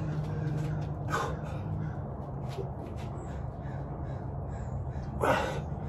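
Two short, breathy effort sounds from a man exercising, one about a second in and a stronger one near the end, over a steady low hum.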